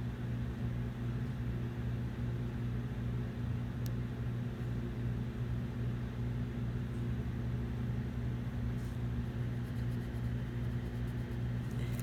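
Steady low mechanical hum over a faint hiss, with a single faint click about four seconds in.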